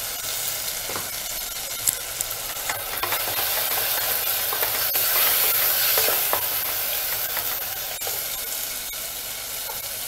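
Onion and tomato masala sizzling in hot oil in an aluminium pressure-cooker pan while a wooden spatula stirs it, with now and then a short scrape of the spatula against the pan. The sizzle swells a little around the middle.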